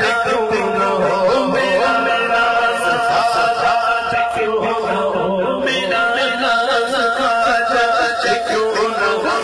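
A man singing a naat unaccompanied into a microphone, amplified, holding long wavering, ornamented notes.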